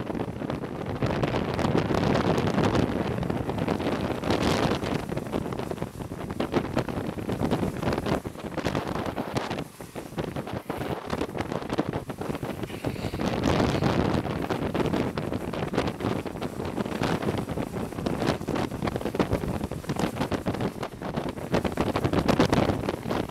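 Wind rushing hard over the microphone at downhill longboarding speed, swelling and easing every few seconds, over the roll of longboard wheels on asphalt.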